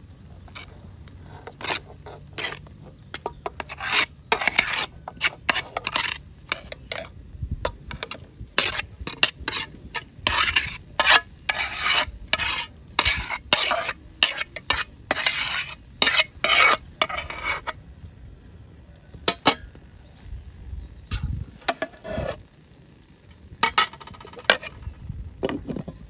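Metal spoon scraping and knocking against an aluminium pot as herb rice is spooned and tipped into a cooking pot: a busy run of scrapes and taps, then a few separate clanks of pot and lid near the end.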